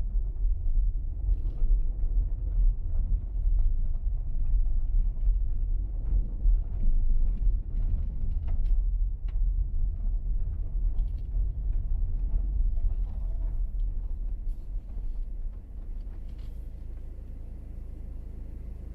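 Car driving on a dirt road: a low rumble of engine and tyres with scattered small knocks and rattles. It gets quieter over the last few seconds.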